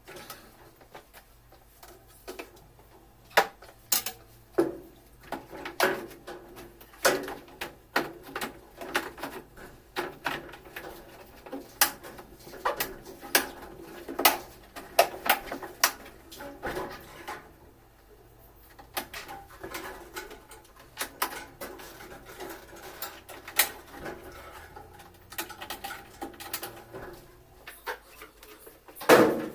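Irregular clicks and knocks, a few a second with short pauses, of parts and tools being handled while a washing machine is taken apart.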